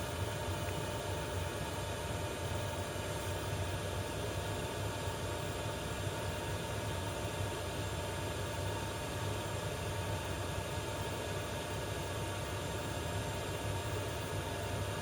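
Diesel parking heater running steadily as it warms up: a constant whir with a low hum from its blower and burner.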